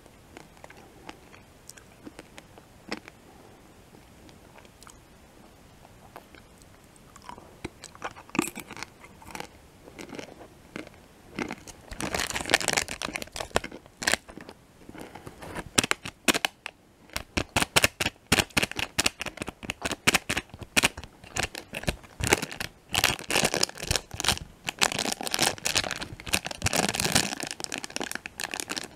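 Faint, sparse mouth clicks of chewing a peanut M&M, then a Peanut M&M's plastic candy wrapper being crinkled and handled close to the microphone. The crinkling starts about twelve seconds in as rapid, dense crackling and is the loudest sound.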